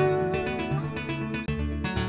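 Background music led by a plucked acoustic guitar playing a run of separate notes, with a momentary break about a second and a half in.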